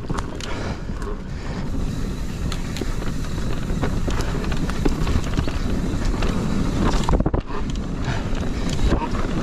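Mountain bike riding fast down a dirt singletrack: tyre rumble and wind buffeting the microphone, with frequent sharp clicks and rattles from the bike over bumps, and a short lull about seven seconds in.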